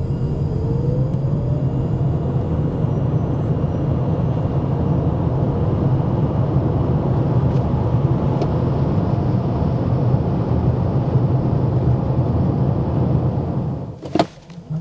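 Toyota Mirai hydrogen fuel-cell electric car accelerating and driving on studless winter tyres: a brief rising electric-drive whine early on over steady road and tyre rumble. The rumble falls away near the end, and a sharp click follows.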